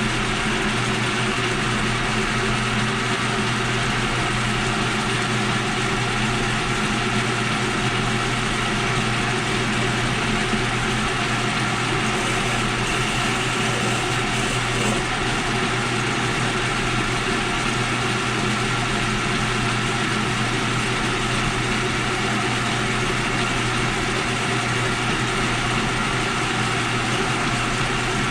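A shop machine tool's electric motor running steadily, an even hum and whir that holds without a break.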